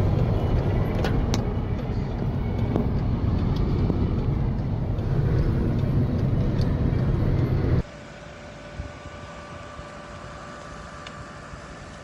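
Raw field sound under wildfire footage: a loud, steady low rumble with a few sharp crackles. It cuts off about eight seconds in to a much quieter steady background noise with a faint hum.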